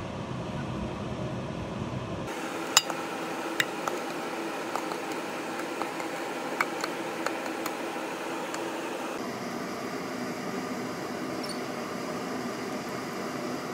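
Spatula scraping mashed potato from a steel saucepan into a glass baking dish, with a few sharp clinks of utensil on pot and glass, over a steady background hum.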